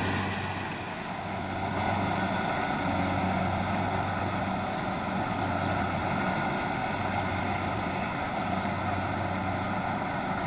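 Kubota DC-70 Plus combine harvester running steadily while cutting rice: a continuous diesel engine hum mixed with the noise of the threshing machinery. It dips slightly about a second in, then holds level.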